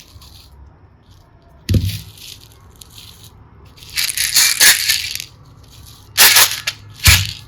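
Four separate bursts of crackling, rattling noise with quiet gaps between: the first a little under two seconds in and the last near the end, each of these two starting with a dull thud, and the longest around the middle. They are handling sounds from slime and clay ASMR play.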